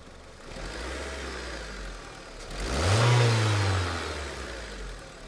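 2005 Honda Civic's 1.7-litre four-cylinder engine revved by hand at the throttle cable: a modest rise about half a second in, then a bigger rev that peaks around three seconds in and falls back toward idle.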